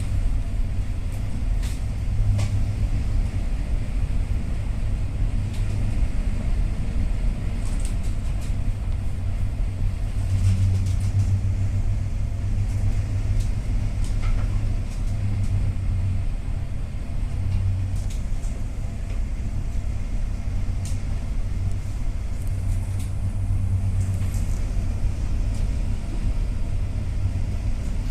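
Steady low rumble of a ship labouring in rough seas, with a few faint sharp knocks now and then.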